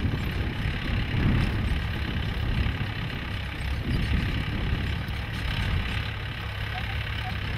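Mahindra 475 DI diesel tractor engine running steadily as it pulls a tined cultivator through a dry field.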